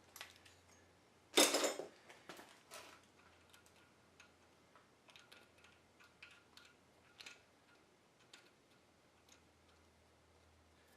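Small metal clicks and clinks of a hand tap and wrench chasing 1/4-20 threaded holes. A short, loud rush of noise comes about a second and a half in.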